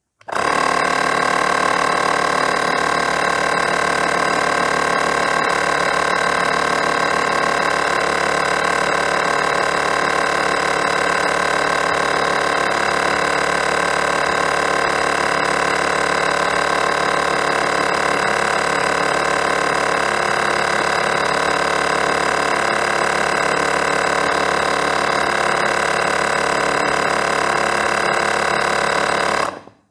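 Ferrex battery-powered mini air compressor running steadily under load, its small motor and piston pump pushing a trailer tyre from 60 up to 65 PSI. It starts right at the beginning and cuts off about half a minute later, once the tyre reaches 65 PSI.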